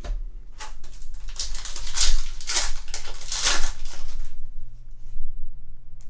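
Foil wrapper of a Yu-Gi-Oh trading-card booster pack being torn open and crinkled, a run of crackling rustles from about one to four seconds in.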